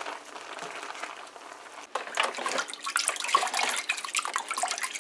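Chow mein noodles bubbling at the boil in a pot as they are stirred. About two seconds in this gives way to louder, irregular splashing as hands rinse raw shrimp in a plastic bowl of water in a sink.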